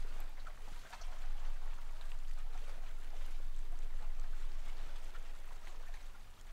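Steady rushing hiss with faint scattered ticks and a low hum underneath.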